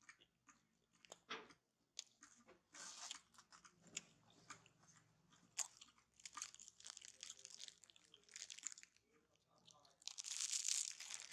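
Metal spoon scraping and clicking in a plastic cup of jelly as it is stirred and scooped: a run of faint, short clicks and scrapes, with a louder rustling hiss near the end.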